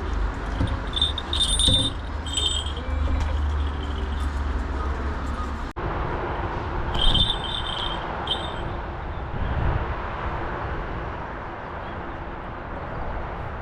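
Wind buffeting the microphone outdoors, a steady rush with a deep rumble that stops at a cut partway through. Two brief clusters of thin, high-pitched chirps come over it, one early and one a few seconds after the cut.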